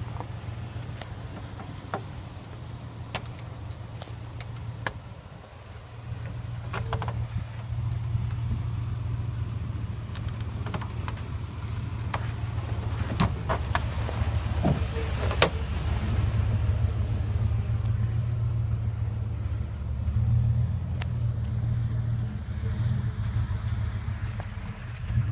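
Chevrolet K1500 pickup's engine running low and steady as the truck crawls over sand mounds, getting louder about a quarter of the way in, with scattered sharp clicks and knocks.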